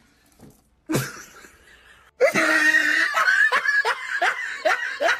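A sudden sharp sound about a second in, then from about two seconds in a person laughing hard: a quick run of loud bursts, each falling in pitch.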